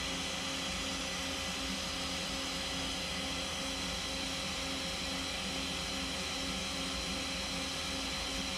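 Steady machine-shop hum: a mechanical drone and hiss with a low pulse about twice a second.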